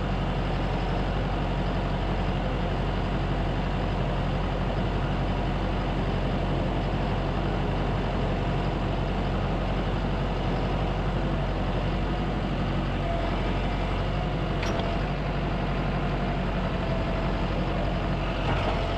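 Vehicle engine running steadily, a low even drone with no change in speed.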